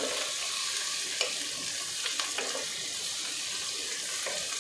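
Sliced onions sizzling steadily in hot ghee with whole spices in a nonstick pan, being softened until translucent. A wooden spatula stirs them, giving a few light scrapes and taps.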